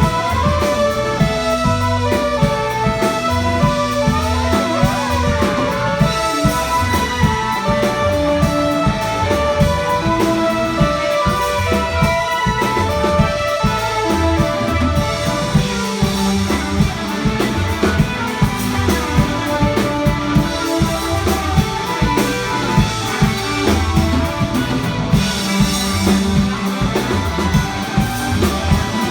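Live band playing rock music, with a steady drum-kit beat under guitar.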